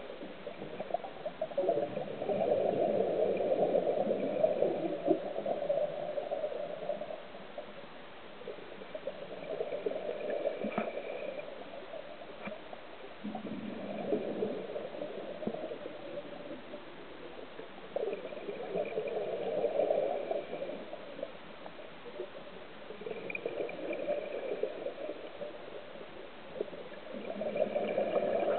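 Scuba divers' exhaled air bubbling out of their regulators underwater, coming in surges every four to five seconds with quieter gaps between as they breathe in.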